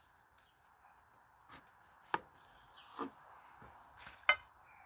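Kitchen knife cutting through a sandwich on a wooden cutting board, with several sharp knocks of the blade against the board. The loudest knock comes near the end.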